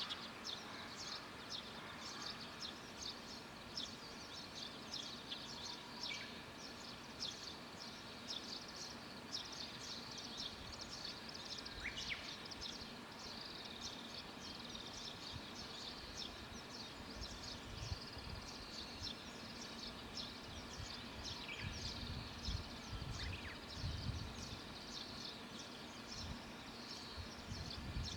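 Many small birds chirping continuously in a dense, overlapping chorus of short high calls, with a low rumble coming and going in the second half.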